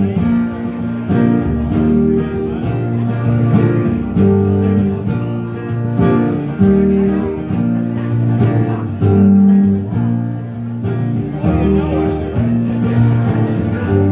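Instrumental break of a song, led by strummed acoustic guitar chords over bass notes.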